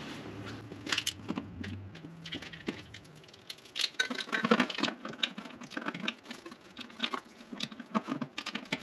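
Irregular metallic clicks, taps and scraping from a flex-head ratchet and socket being handled and fitted onto a bolt under a car, growing busier about halfway through.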